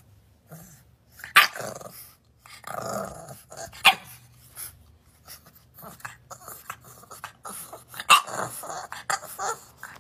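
Bulldog puppy growling and giving short barks in irregular bursts, with a few sharper, louder yaps spread through.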